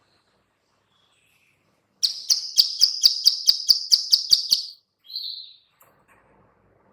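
Female plain prinia (ciblek sawah) giving its 'klik-klik' call: a fast run of about a dozen sharp clicks over nearly three seconds, starting about two seconds in, followed by one short note. It is the female's call that bird keepers play to draw other prinias into answering.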